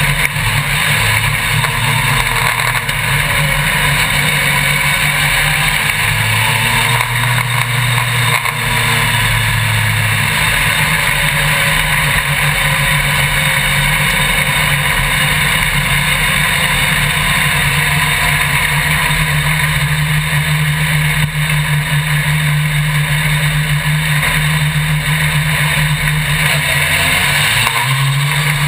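Onboard sound of an autocross racing buggy's engine running hard at racing speed, its pitch stepping up and down with throttle and gear changes.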